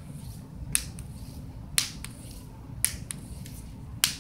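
A person snapping their fingers to call a hiding cat: four sharp snaps about a second apart, over a low steady background rumble.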